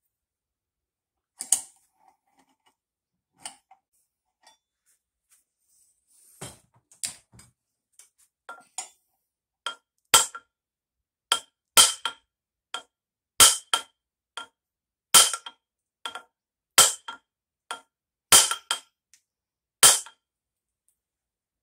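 Hammer blows on a steel flywheel puller fitted to the flywheel of a 1964 Johnson 3 hp outboard, each strike ringing with a metallic tone. The tapping is shock-loading the seized flywheel to break it free of the crankshaft. A few light knocks come first, then blows about once a second that grow louder partway through.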